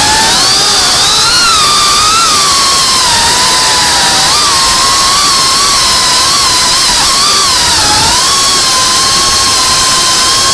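FPV freestyle quadcopter's brushless motors and propellers whining loudly, heard from the camera on board, the pitch wavering up and down as the throttle changes.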